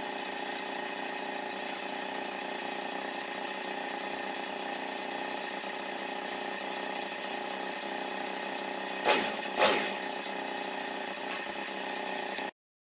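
Single-cylinder four-stroke engine of a copy Honda Wave motorbike idling steadily, with the abnormal engine noise still present after the top-end rebuild. Two short loud sounds come about nine seconds in, and the sound cuts off abruptly near the end.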